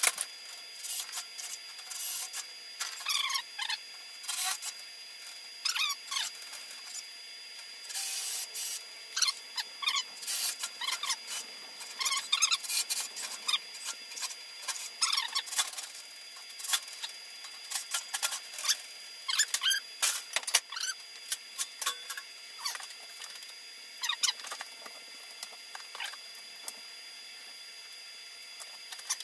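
Young chicks peeping: a steady run of short, high chirps. A few brief scraping bursts stand out among them.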